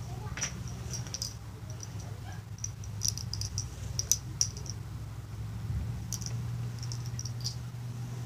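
Handling noise: the recording device being shifted and rubbed against fabric, giving scattered small clicks and crackles over a steady low hum.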